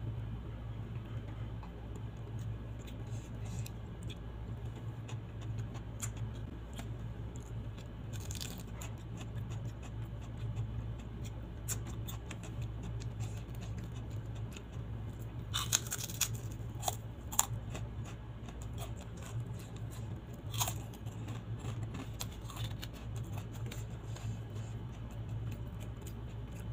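Close-miked eating sounds over a steady low hum: small mouth clicks and crackles, with a cluster of sharp, crisp cracks about two-thirds of the way in and one more shortly after, from biting and breaking kerupuk crackers.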